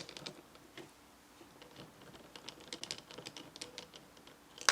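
A 10 mm ratchet socket wrench clicking in quick runs as it turns the grinder's reverse-threaded burr nut clockwise to loosen it, with a louder click near the end.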